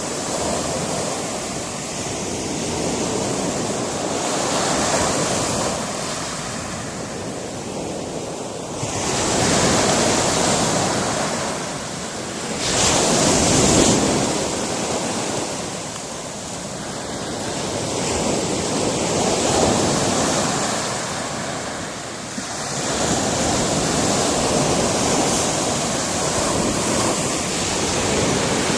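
Sea surf breaking on a rocky shore: a steady wash of waves that swells louder and falls back every few seconds as each wave comes in.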